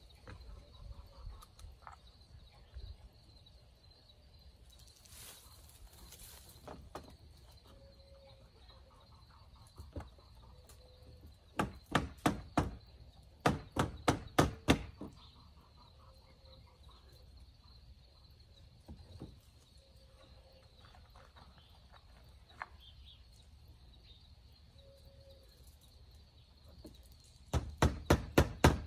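A hammer striking nails into short wooden blocks on an old wooden window frame, fixing them to hold the sash up. Quick runs of five or six blows come about twelve seconds in, again a second later, and near the end, with a quiet outdoor background in between.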